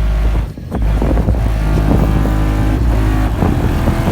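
2011 Chevrolet Avalanche's V8 engine running at a steady idle through Flowmaster mufflers. The sound dips briefly about half a second in.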